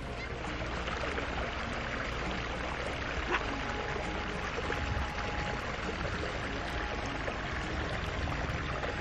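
Small mountain stream trickling steadily over gravel into the edge of a lake, with one short click a little over three seconds in.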